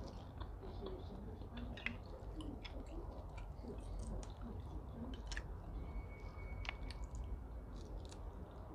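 Close-up chewing of steamed prawns, with scattered small clicks and crackles of prawn shells being pulled apart by hand.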